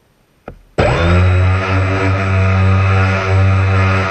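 A short click, then an RC bass boat's motor suddenly comes up to speed and runs steadily and loudly with a low hum, along with the hiss of the propeller's spray.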